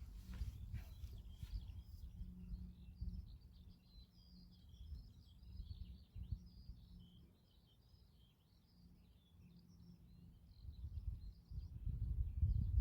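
Faint songbirds chirping and twittering continuously, over a low rumble that grows louder near the end.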